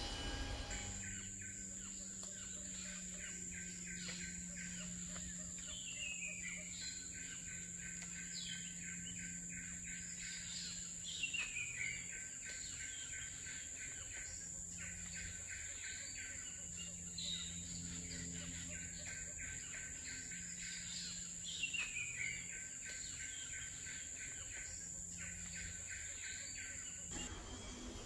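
Forest insect and bird chorus: a steady high-pitched insect whine over a fast pulsing chirr, with a call that sweeps down in pitch every few seconds. It starts about a second in and cuts off suddenly near the end.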